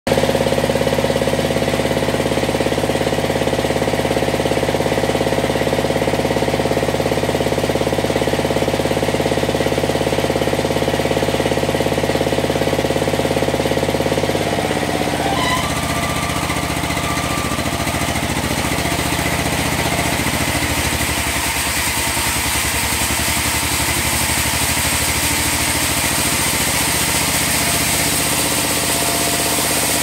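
Sawmill bandsaw and its drive running steadily and loudly. About halfway through the pitch of the running drops and a higher hiss comes up, then it settles into a steady run again.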